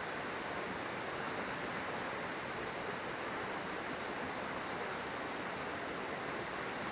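River water flowing over rocks with a steady, even rush.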